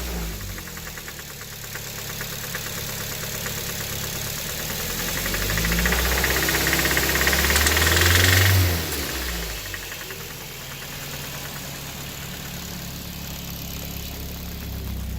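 Suzuki Swift Sport engine idling with a rattling noise (ガラガラ音), revved up once for a few seconds near the middle and falling back to idle. The rattle started suddenly about a week ago on an engine with 130,000 km and an oil change two months old.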